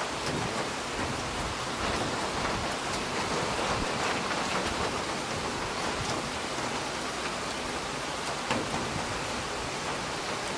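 Steady rain falling on wet paving, with scattered faint drop ticks.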